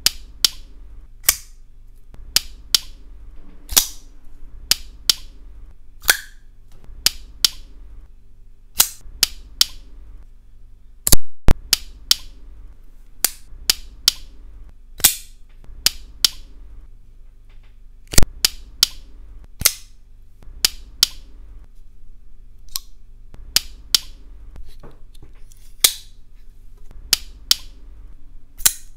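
Two Opinel folding knives with wooden handles handled together: a long irregular string of sharp clicks and clacks from the blades and handles, with two much louder snaps about eleven and eighteen seconds in.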